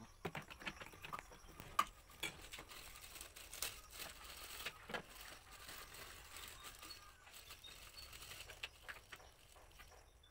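Faint handling noise: scattered clicks of plastic sprayer parts and the crinkling of a plastic parts bag, with one sharper click a little under two seconds in.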